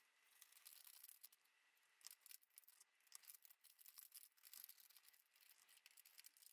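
Near silence: the sound track is all but muted.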